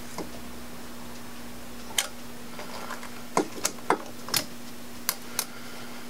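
Light, sharp metal clicks and ticks, about seven spread over a few seconds, as a top piston ring is fitted by hand into its groove on an LS 5.3L piston. A steady low hum runs underneath.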